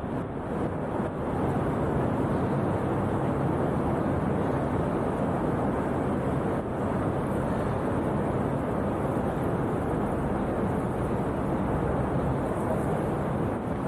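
Steady low rumbling ambient noise of a busy station or city street, with a faint steady hum and no single event standing out.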